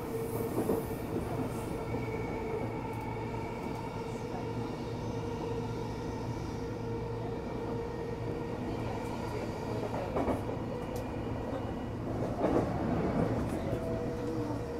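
Running sound inside a JR East E233 series electric train car: a steady rumble of wheels on the rails with a steady electric hum, swelling briefly twice near the end.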